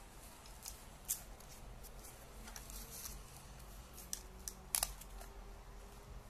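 Hook-and-loop hand strap being handled and threaded onto a plastic night vision monocular: soft scattered rustles and clicks of webbing and fastener, the loudest one about five seconds in.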